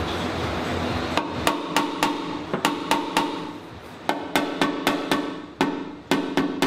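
Small body hammer tapping on a truck's sheet-metal body panel, about twenty light taps in an uneven rhythm starting about a second in, each with a short metallic ring: knocking down a high spot in the metal before it is filled.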